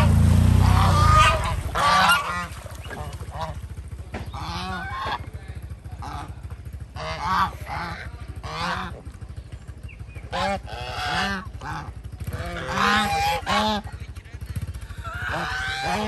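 Poultry honking, short calls repeated in bouts every second or two. A motor's steady low hum cuts off about a second in.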